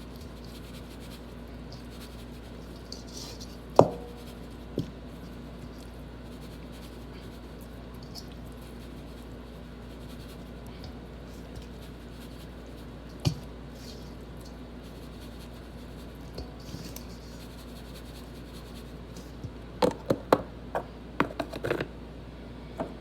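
Kitchen handling sounds from seasoning chicken legs: a few single knocks and taps, then a quick run of clicks and knocks near the end, over a steady low hum.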